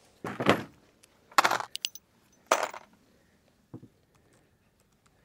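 Metallic clinking of a .357 Magnum revolver and its brass cases being handled off camera, in three short bursts about a second apart and then one faint knock, after the shots have been fired.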